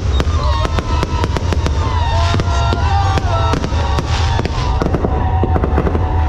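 Fireworks display: a dense barrage of shell bursts, many sharp bangs a second with crackle between them.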